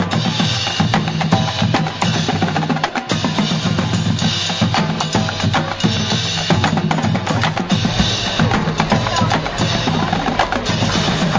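Marching drumline playing a cadence on snare drums and bass drums.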